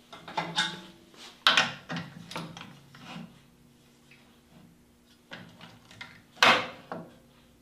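Irregular knocks, clicks and short sliding scrapes of an aluminium jig rail being shifted and adjusted with a screwdriver on a bandsaw table. The loudest knock comes about six and a half seconds in.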